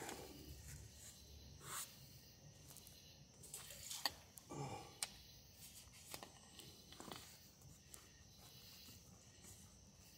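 Near silence: room tone with scattered faint clicks and rustles.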